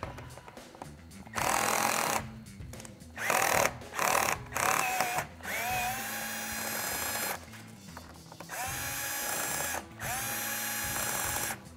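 Cordless drill/driver with a Torx T30 bit running in about six short bursts, backing out the bolts that hold a stock roof rail down. The motor whine rises as each burst starts, then holds steady.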